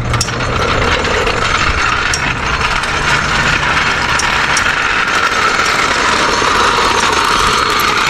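Steady mechanical noise from tire-shop work on a trailer wheel, with a few sharp clicks.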